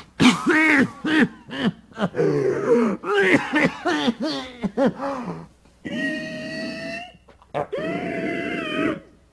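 A man groaning, grunting and gasping in pain during a sudden fit, followed by two long, high, held cries near the end.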